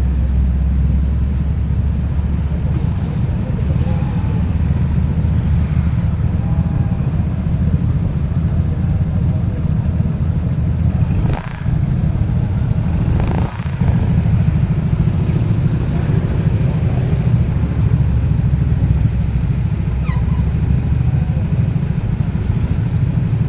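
Steady low rumble of a motor vehicle travelling on the road, engine and road noise together, with two brief dips about eleven and thirteen seconds in.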